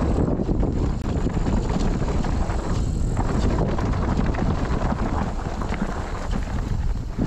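Mountain bike descending a rough dirt trail: rattling knocks and tyre noise, with wind rushing over the microphone throughout.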